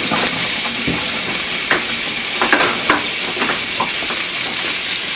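Cubed chicken sizzling steadily in melted bacon grease in a stovetop pan, with scattered short pops and clicks.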